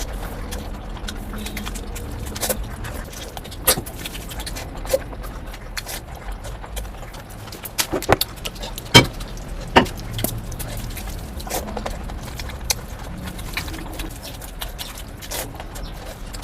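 Close-miked eating sounds: chewing and mouth clicks with scattered sharp clicks and taps, the loudest a cluster around eight to ten seconds in.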